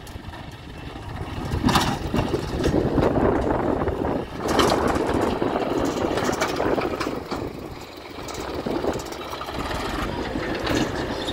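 Farm tractor's diesel engine running under load while it drags a plough and blade through soil, with a few sharp knocks over it. The sound dips briefly about eight seconds in, then the engine carries on steadily.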